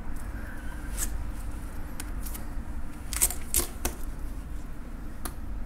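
Knife cutting a fillet off the frame of a skinned horse-face filefish (umazura). The blade gives a handful of sharp clicks and scrapes against the bones and the wooden board, most of them about three to four seconds in, over a steady low background hum.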